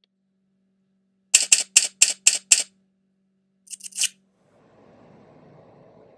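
A run of six sharp clicks, about four a second, then three quicker, fainter clicks, over a faint steady hum. About four and a half seconds in, the clicks and hum give way to a low steady room noise.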